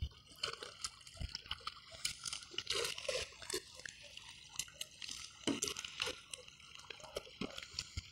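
Water splashing and dripping in small, irregular splashes and drips.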